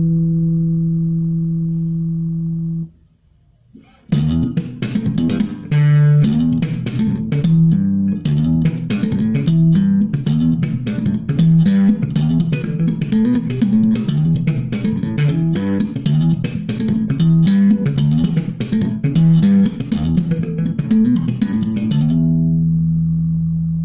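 Electric bass guitar playing a simple slap lick. A held low note rings and stops about three seconds in, then after a brief pause comes a fast run of slapped and popped notes with sharp percussive clicks, which ends on a long ringing note.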